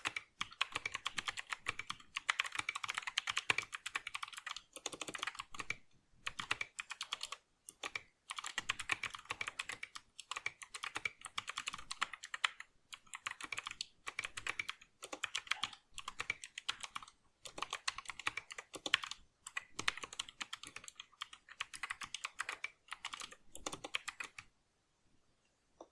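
Typing on a Geek GK61 60% keyboard fitted with Gateron blue optical switches: fast clicky keystrokes in runs with brief pauses, stopping near the end.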